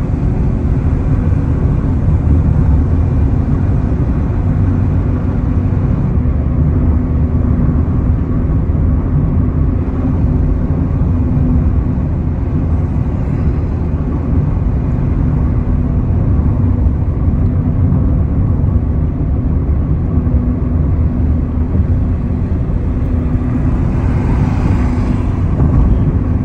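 Steady low rumble of a car driving at motorway speed, heard inside the cabin: tyre and road noise with the engine's faint steady hum.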